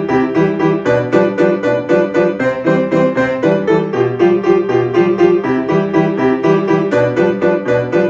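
Upright piano played with both hands: a lively tune of quick repeated notes and chords, about four strikes a second, over a moving bass line.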